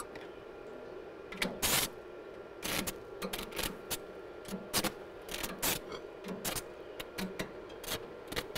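Irregular sharp knocks and taps on the steel of a manure spreader under welding repair, two or three a second, starting about a second and a half in, over a steady hum.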